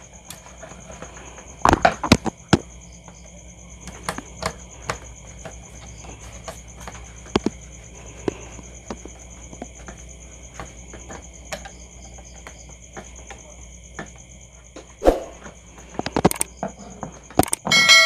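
Scattered clicks and knocks of a plastic switch-and-outlet wiring device being handled and its terminal screws worked with a screwdriver as a wire is connected. A steady high-pitched drone runs underneath.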